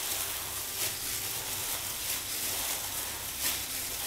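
Wet squishing of ground beef and soaked bread being kneaded by hand, with the crinkle of loose plastic food-safe gloves. It comes as an even, hissy squelching with irregular sharper squishes.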